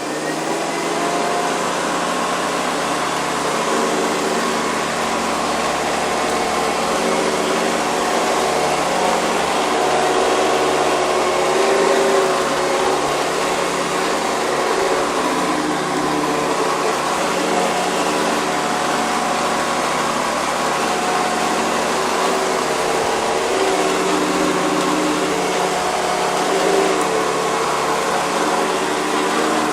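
Hoover Convertible upright vacuum cleaner with a metal fan, running steadily while vacuuming torn paper napkin pieces off carpet. A rushing air noise carries a motor whine that wavers slightly in pitch.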